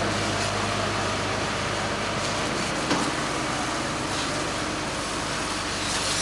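Steady rushing hiss of a fire hose spraying water onto a burning car, over the low steady hum of the fire engine's engine and pump. A brief knock about halfway through.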